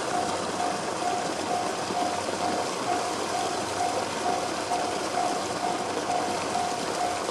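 Railway level-crossing alarm sounding the JR standard electronic bell tone, a single pitched ding repeating evenly about two and a half times a second, over a steady wash of noise.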